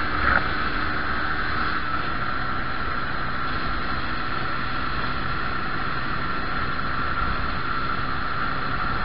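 Motorcycle engine running at a steady cruise, with wind and road noise, picked up by the camera's built-in microphone.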